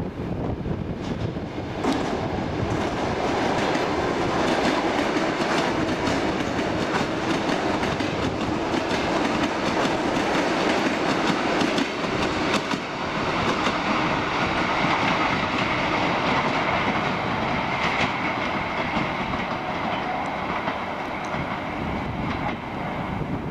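ER2T electric multiple unit passing by on the tracks, its wheels clattering over the rail joints with a steady run of knocks. A faint high whine rises over the rumble about halfway through.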